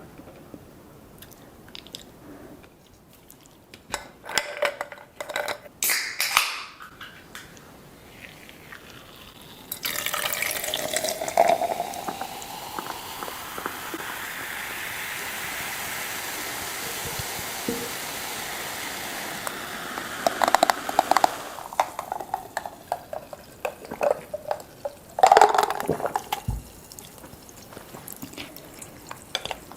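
Liquid being poured in a steady stream for about ten seconds in the middle. Before and after it come short crackles and clicks of food being handled and eaten.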